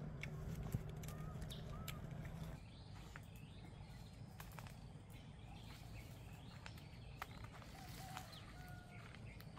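Quiet forest ambience with a few short, faint bird chirps and scattered light clicks and rustles. A low steady hum underneath stops about two and a half seconds in.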